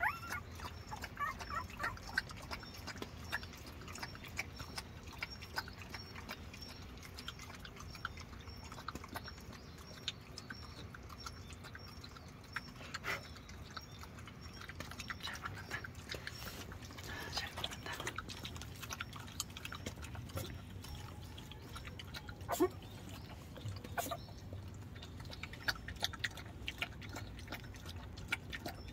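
Newborn Jindo puppies nursing: soft grunts and a faint squeal, with small suckling smacks and clicks scattered throughout.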